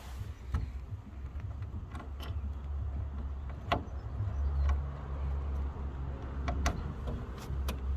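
Scattered light clicks and knocks of a screw being pushed and worked through the side of a plastic wheelie bin into a plastic perch, over a low rumble.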